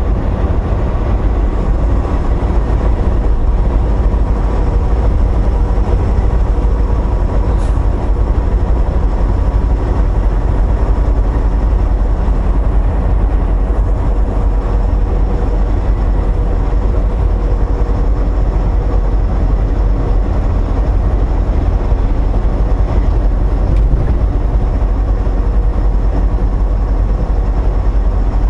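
Steady low drone inside a semi-truck's cab cruising at highway speed: the engine, tyres and wind blend into an even rumble, with faint steady hums above it.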